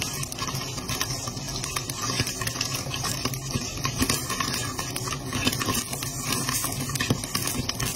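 Popcorn kernels popping in a lidded wok that is being shaken on the stove: a dense run of pops mixed with kernels rattling against the pan and glass lid, with no let-up.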